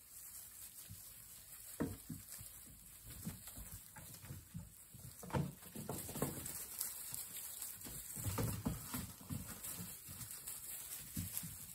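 Golden retriever puppies playing and tumbling on a bed of hay: irregular rustling with scattered soft thumps, busiest around the middle and again about two-thirds of the way in.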